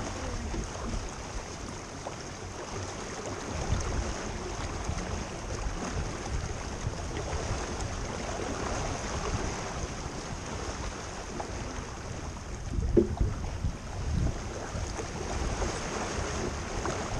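Water rushing past the hull of a small racing keelboat under sail, with wind buffeting the action camera's microphone as a steady low rumble. A couple of brief knocks stand out about two-thirds of the way through.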